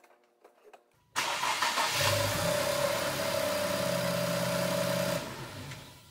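A 2021 Infiniti Q50's 3.0-litre twin-turbo V6 is cranked by the starter from about a second in, catches and runs for about three seconds, then stops and fades out. The car has a hard-start problem with a P0335 crankshaft position sensor code.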